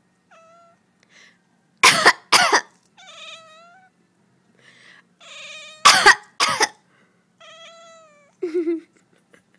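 A person coughs twice in quick succession and a cat answers with a meow. Then come two more coughs and another meow, the cat objecting to the coughing. A short, low-pitched sound follows near the end.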